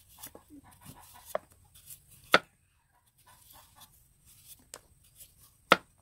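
Kitchen knife chopping through a taro root onto a wooden chopping board: two sharp knocks about three and a half seconds apart, the second near the end, with lighter taps between.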